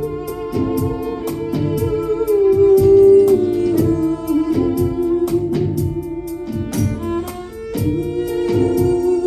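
Live instrumental music: a violin holding long notes and sliding between pitches, over a steady run of hand-struck percussion strokes.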